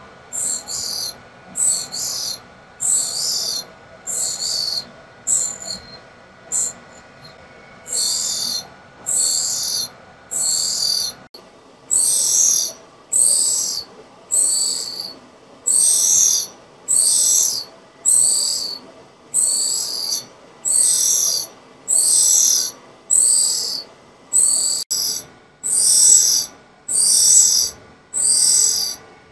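Tool and cutter grinder's wheel grinding relief on a drill bit turning in a cam relieving fixture: a high hissing grind that comes in regular bursts about once a second as the cutting edges pass the wheel, over a steady machine hum. The bursts are short and uneven for the first several seconds, then grow fuller and steady as the wheel works its way onto the whole edge.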